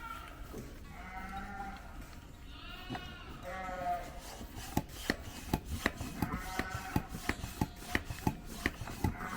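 Ewe bleating several times in low, wavering calls. From about halfway, a quick run of sharp clicks, about three a second, plays under the bleats.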